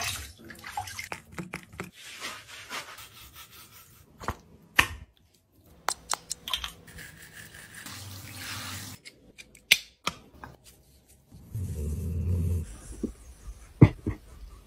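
Water from a handheld shower head running over a dog in a bathtub, with a few sharp knocks and splashes against the tub. Near the end a low rumbling sound comes in.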